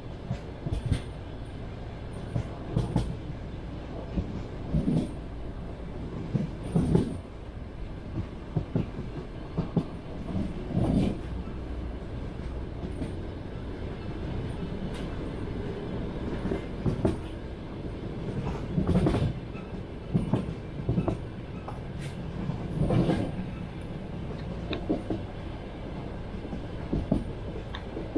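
Passenger train wheels knocking over the rail joints, loud clacks every second or two over the steady rumble of the moving carriage.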